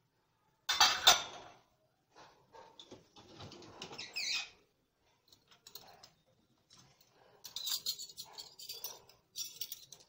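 Stainless steel tumblers and spoons clattering and clinking against the wire racks and cutlery tray of a Bosch dishwasher as it is loaded. A loud clatter comes about a second in, then scattered clinks, a brief high squeak near the middle, and a run of bright clinks near the end.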